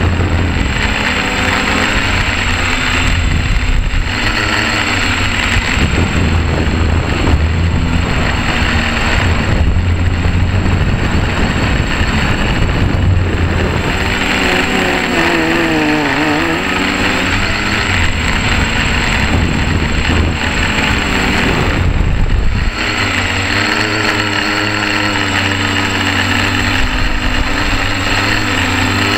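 Electric motors and propellers of a quadcopter in flight, heard from its onboard camera: a steady buzzing whine whose pitch wavers up and down as the throttle changes. A low rumble under it drops away about three-quarters of the way through.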